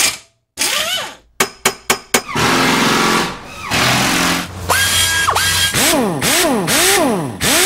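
Tool-themed logo intro sound effects: a quick run of sharp knocks, a burst of power-tool whirring, a short held electronic tone, then a motor whine that sweeps up and down several times.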